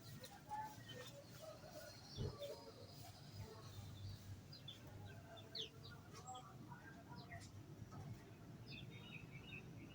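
Small aviary birds chirping and twittering, many short high chirps and quick pitch glides scattered throughout. A single soft thump sounds about two seconds in.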